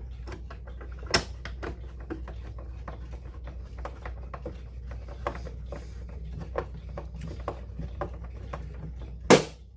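Screwdriver driving small screws into a wall clock's case, giving many small irregular clicks and ticks, with a sharp knock near the end. A steady low hum runs underneath.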